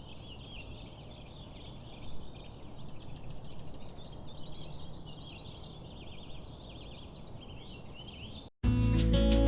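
Birds chirping and twittering, many quick short notes that rise and fall, over a steady low rumble of outdoor background noise; music cuts in abruptly near the end.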